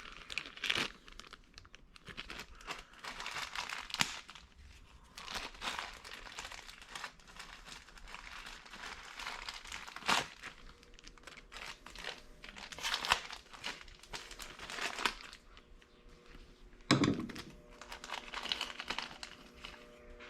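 Small plastic bag holding replacement O-rings crinkling and rustling in irregular bursts as it is handled and opened, with a louder burst near the end.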